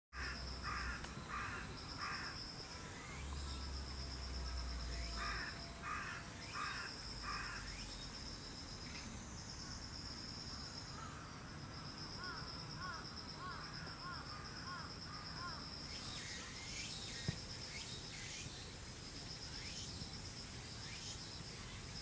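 Wild birdsong in woodland. A bird gives harsh calls in two runs of four, near the start and again around five to seven seconds, over a high, pulsing trill that recurs throughout. Soft chirps follow in the middle, and quick high descending calls from other birds come in the last several seconds.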